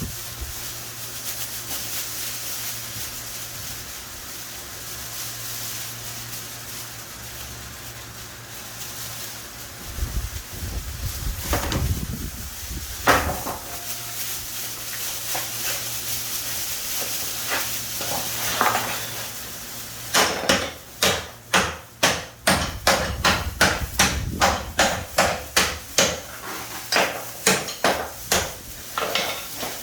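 Hammer blows: a few scattered strikes, then a steady run of about two sharp blows a second over the last ten seconds.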